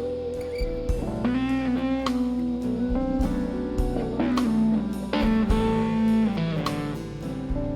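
Background music: a blues-style electric guitar playing bending, held notes over a drum kit beat.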